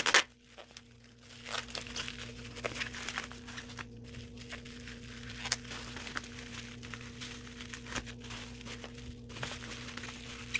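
Plastic bubble wrap crinkling and rustling as hands unwrap it, with many small crackles throughout and a brief louder burst right at the start.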